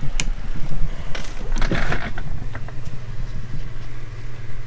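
Electric shop fan running with a steady low hum, with a sharp click near the start and a brief rustling, scraping noise of handling about a second in.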